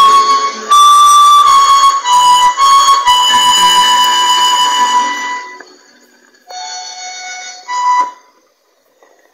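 Small Bluetooth speaker playing a song from an SD card, a melody of long held notes, during a playback test after its charging pin was replaced. The music fades about five seconds in, a few softer notes follow, and it is nearly silent near the end.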